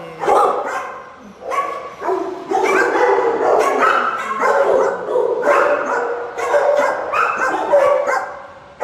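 Dogs barking in a shelter kennel: a near-continuous run of overlapping barks at different pitches.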